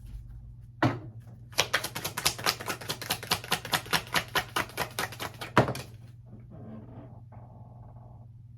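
Tarot cards being shuffled by hand: a single card snap about a second in, then a fast, even run of card clicks, about eight a second, for about four seconds.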